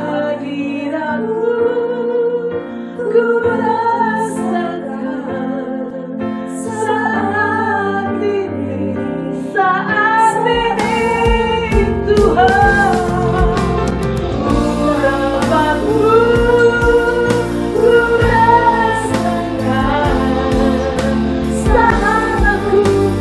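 Female worship vocal group singing an Indonesian praise song together over keyboard. About ten and a half seconds in, bass guitar and drums come in and the band plays fuller under the voices.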